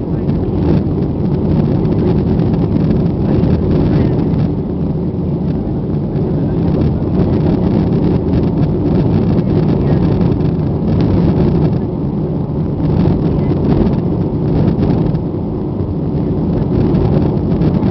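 Steady cabin noise of a Boeing 737-800 climbing out after takeoff: a loud, even rumble of the CFM56-7B engines and rushing airflow, heard from inside the cabin at a seat over the wing.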